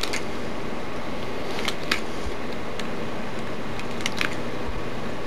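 A few light, sharp clicks of thin copper wire strands being worked with pliers and cutters as the root strands are tapered, over a steady hiss.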